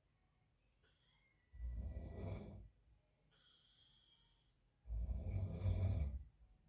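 A man snoring in his sleep: two low, rough snores about three seconds apart, each lasting about a second, with quiet between them.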